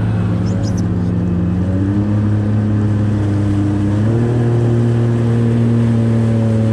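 Yamaha WaveRunner jet ski engine running under way. Its pitch steps up about two seconds in and again about four seconds in as the throttle opens.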